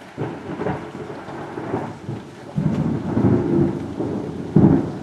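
Loud thunder from a close cloud-to-ground lightning strike. A rolling rumble starts suddenly, swells again halfway through, and peaks in a sharp clap near the end, over steady rain.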